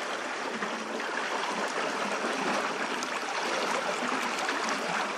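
Steady splashing and trickling of water churned up by a pontoon paddle boat's paddle wheel as the boat moves along.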